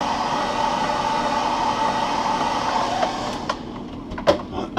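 Hand-held hot-air dryer blowing steadily on a freshly painted lure, with a faint whine in its rush. Its noise eases off after about three and a half seconds, and a few clicks and a sharp knock follow as it is put down.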